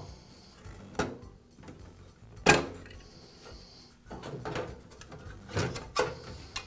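A sheet-metal light reflector and a plastic grille on a bathroom vent-fan-heater being handled and worked loose: several scattered knocks and scrapes, the sharpest about two and a half seconds in.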